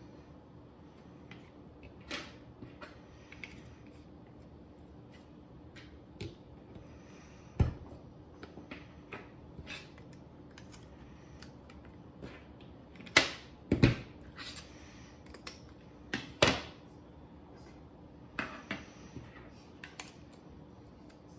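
3D-printed plastic parts and 608 ball bearings being handled and fitted together on a tabletop: scattered clicks and taps, with a few louder plastic knocks near the middle.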